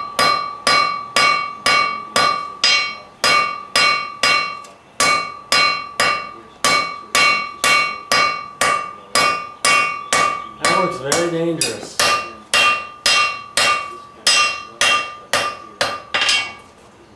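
Blacksmith's hand hammer striking hot iron on an anvil: fast, even blows about two and a half a second, each with a clear ringing tone from the anvil, stopping just before the end. The blows are hard and fast enough that the small piece of iron stays hot from the hammering alone.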